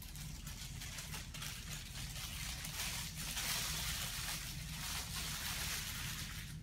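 Thin plastic of a long Bernoulli bag (windbag) rustling and crinkling as it is handled and blown into by mouth, loudest about three to five seconds in, over a steady low hum.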